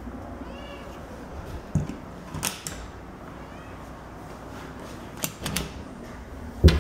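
A cat meows briefly near the start. Then come scattered knocks and clacks from the enclosure doors and fittings being handled, the loudest a thump near the end.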